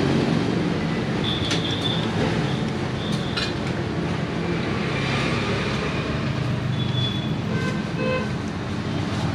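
Steady road traffic noise, with a few brief high tones.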